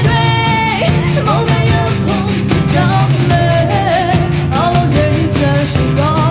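A woman singing a Burmese pop-rock song with a band of drum kit and guitar. She holds a long note at the start, then slides and wavers through the melody over a steady drum beat.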